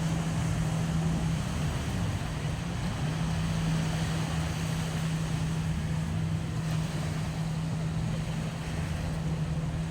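Motorboat engine running at a steady speed, a constant droning hum over rushing water and wind noise.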